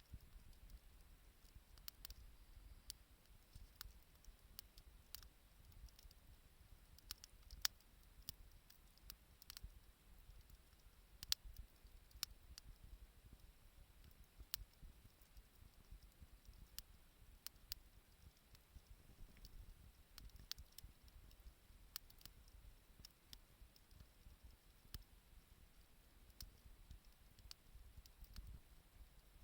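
Faint, irregular crackles and pops of a wood bonfire burning, with two louder pops about eight and eleven seconds in.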